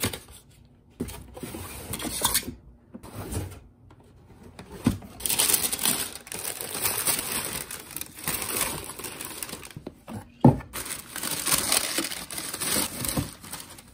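Tissue paper rustling and crinkling as hands dig through it inside a cardboard shoebox, denser after the first few seconds, with one sharp knock about ten and a half seconds in.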